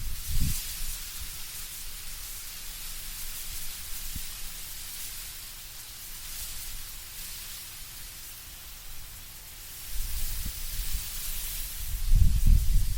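Wind blowing through autumn trees, the leaves rustling in a steady hiss that swells and eases. Deep gusts rumble briefly at the start and again from about ten seconds in, strongest near the end.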